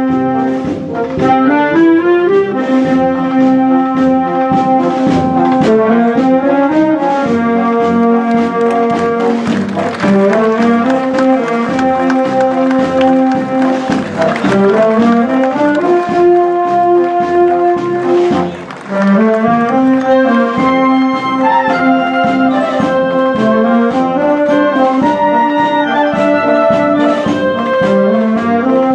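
A Portuguese wind band (banda filarmónica) of brass and woodwinds playing a tune together in sustained, loud phrases, with a brief break in the sound about two-thirds of the way through.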